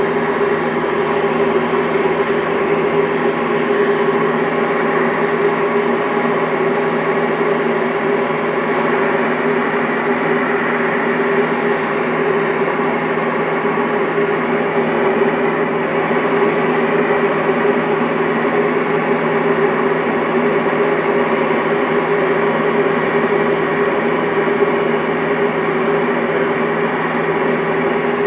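Light aircraft's engine and propeller droning steadily, heard from inside the cabin, with a constant hum at a few fixed pitches over rushing noise.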